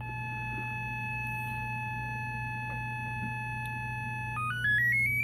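Small loudspeaker driven by a homemade two-stage transistor amplifier (common-emitter stage into a push-pull follower), playing a steady triangle-wave test tone at about 860 Hz from a phone tone-generator app. About four seconds in, the pitch climbs in quick steps as the frequency is turned up. The speaker's reactive load leaves the triangle wave slightly bowed out, that is, mildly distorted.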